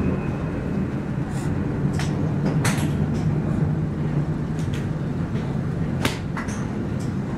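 Sharp clicks of golf balls being struck with clubs on a driving range, the loudest about two and a half seconds in and about six seconds in, over a steady low machine hum.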